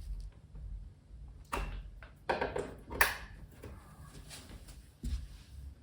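A few separate sharp knocks and clicks of equipment being handled, as an audio cable is moved to another output on a small mixer.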